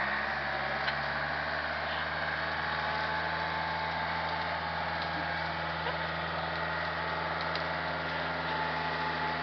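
Tractor engine running at a steady, constant speed.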